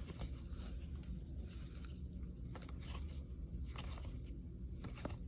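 Faint handling of trading cards, with short scraping clicks every second or so as cards slide and are flipped through a pack, over a low steady hum.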